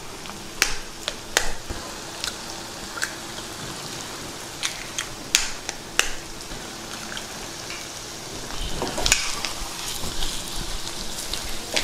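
Prawns frying in a pan of spiced oil, sizzling steadily with scattered sharp pops and crackles; the sizzling and stirring grow louder and busier about eight and a half seconds in.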